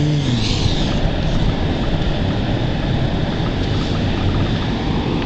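Ford Expedition driving through deep snow: a steady rumble of engine and tyres, with the snow rushing and dragging against the underside of the truck.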